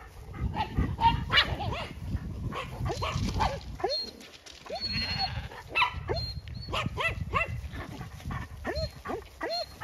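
Small herding dogs yapping and yelping excitedly as they chase sheep, many short rising-and-falling yips throughout, over a steady rumble.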